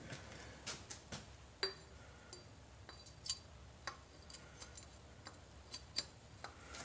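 Faint, scattered light metallic clicks and clinks, a few with a short high ring, as a tube-shaped aluminium installer tool is fitted over the crankshaft nose against a speedy sleeve, ready to be tapped on.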